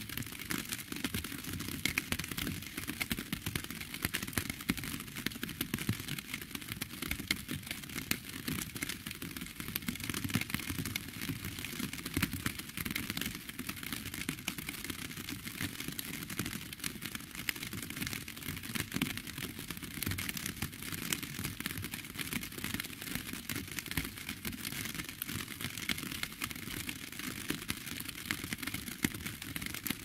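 Rain falling steadily, heard as a dense, irregular pattering of drops ticking on a hard surface, with no let-up.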